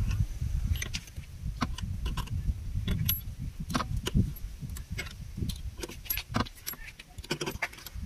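Scissor jack being cranked by hand to lift a car: a string of irregular metallic clicks and clinks as the steel crank rod turns in the jack and rattles against it.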